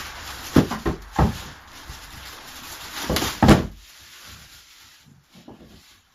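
Packaging being handled: wrapping rustles, and hard items knock against each other or the floor. There are three knocks in the first second or so and a louder run of them about three and a half seconds in, after which the rustling dies down.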